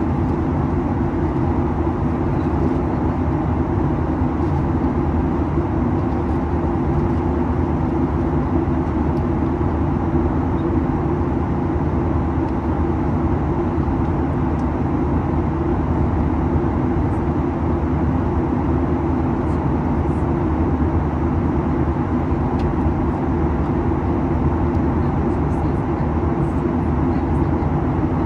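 Steady Boeing 737-800 cabin noise: the constant drone of airflow and the CFM56 jet engines, with a steady low hum beneath it.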